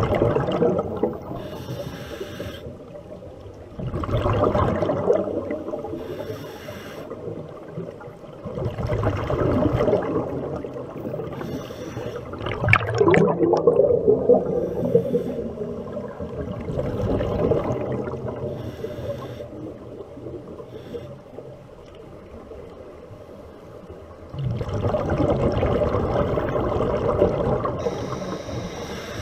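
Scuba diver breathing through a regulator underwater: breaths and gurgling surges of exhaled bubbles come every few seconds.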